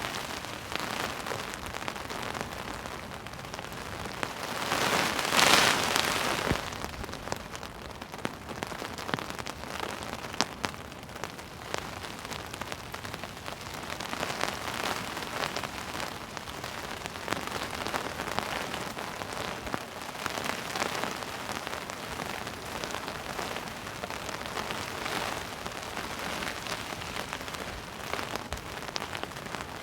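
Heavy rain pouring down, a steady hiss that swells in louder surges, the strongest about five seconds in.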